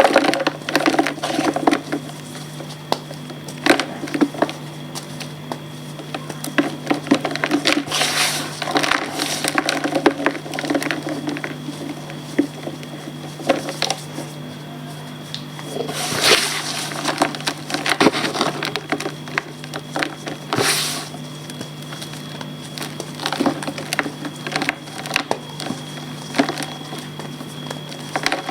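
Reformed gym chalk being crumbled and crushed by hand: dry, irregular crackling and crunching, with several louder crunches as bigger pieces break. A steady low hum runs underneath.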